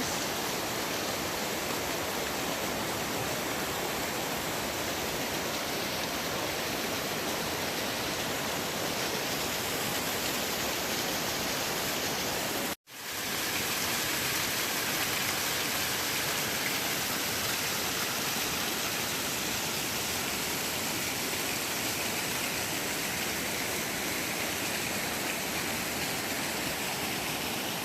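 Waterfall's steady rush of falling water on a creek, about a 30-foot drop. The sound cuts out for an instant about halfway through, then carries on unchanged.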